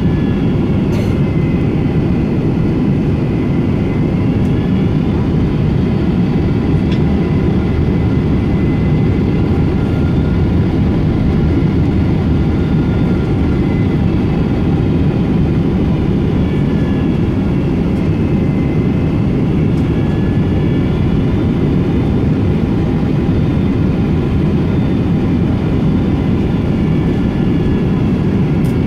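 Boeing 777-200 airliner in flight, heard from inside the cabin: a steady roar of engines and airflow, with faint high engine tones drifting slowly up and down in pitch.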